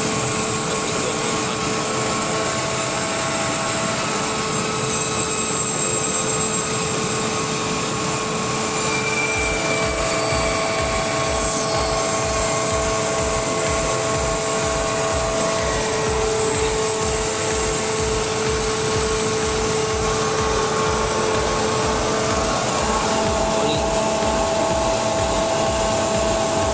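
Airman screw air compressor running loaded: a steady mechanical drone with several whining tones over it, which change in pitch partway through. A low rapid pulsing joins about ten seconds in.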